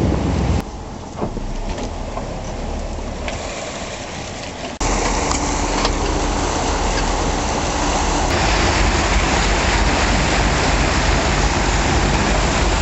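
A boat under way: its engine running, with wind on the microphone and water rushing in the wake. The sound changes abruptly twice, about half a second and about five seconds in, where it becomes louder and steadier.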